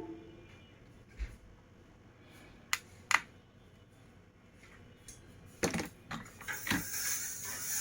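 Small tools and parts being handled on a repair bench: a few separate sharp clicks and taps, then a steady hiss that starts about six and a half seconds in.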